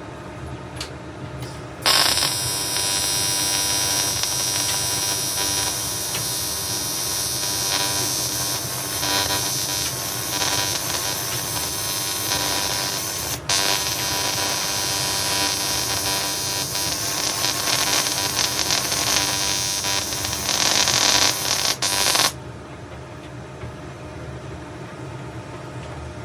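AC TIG welding arc on aluminium: a steady arc sound that strikes suddenly about two seconds in, breaks for an instant around the middle and cuts off about twenty-two seconds in.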